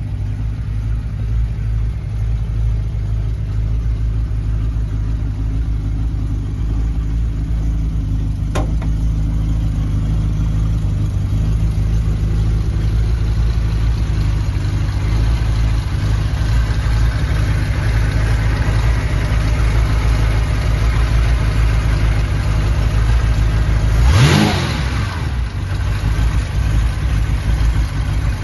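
Jaguar E-type Series 3's 5.3-litre V12 idling steadily. Near the end it gives one short blip of the throttle, rising sharply in pitch and dropping back to idle.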